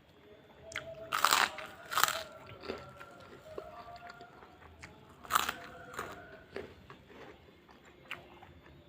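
Close-up eating sounds: crisp food crunched in three loud bites, with chewing in between.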